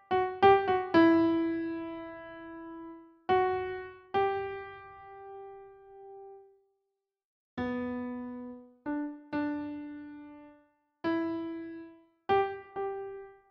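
Slow, sparse piano melody: single notes struck one at a time and left to ring and fade, with a brief silence about seven seconds in.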